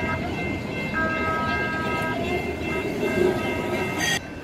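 San Diego Trolley light-rail train running close by with a steady high whine over street noise. A chord of several held tones sounds briefly at the start and again for about a second from about a second in. The sound cuts off abruptly just before the end.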